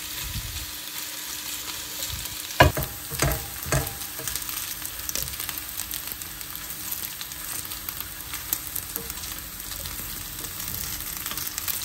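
Cappelletti and chopped sage frying and toasting in a pan over a high flame: a steady sizzle, with a few sharp knocks against the pan between about two and a half and four seconds in as they are stirred.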